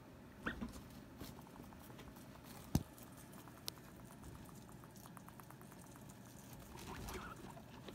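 Guinea pig scuffling and shifting about in a fabric hammock: soft rustling of cloth, with a sharp knock a little under three seconds in and a quick run of soft clicks in the middle.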